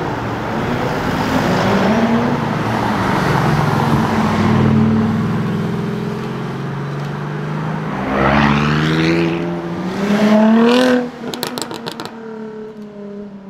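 Mercedes-AMG GT R twin-turbo V8 running at low revs, then accelerating hard with the revs climbing twice through a gear change. It cuts off abruptly and fires a rapid string of exhaust pops and crackles on the lift-off. A quieter car engine follows near the end.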